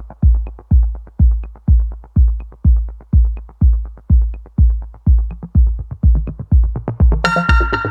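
Electronic background music: a steady four-on-the-floor kick drum about twice a second with light ticking hi-hats, and a bright synth chord coming in near the end.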